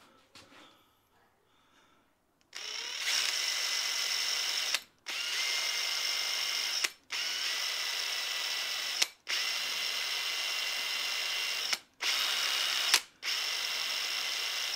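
Metabo power drill with a number 30 bit drilling a hole sized for a 1/8-inch pop rivet. It starts about two and a half seconds in and runs in short steady bursts, stopping and restarting about five times.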